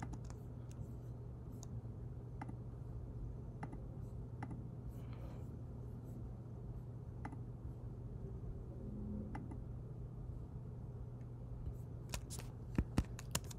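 Faint, scattered clicks from working a computer's keyboard and mouse, single ones every second or so and a quicker run of louder ones near the end, over a steady low hum of room tone.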